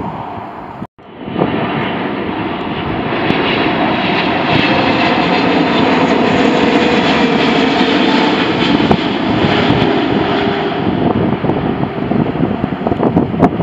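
Boeing 777 airliner on short final approach passing low and close, its jet engines making a steady, loud rushing whine that builds over the first few seconds and then holds. The sound cuts out for an instant about a second in.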